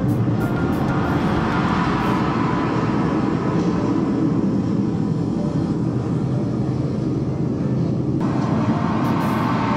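Deep, steady rumbling drone of an ambient electronic soundscape, with a faint held tone above it and faint high clicks at the start and near the end.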